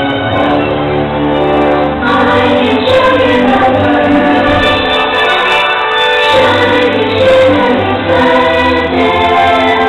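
Orchestral show music with a choir singing, the soundtrack of a theme-park fireworks show.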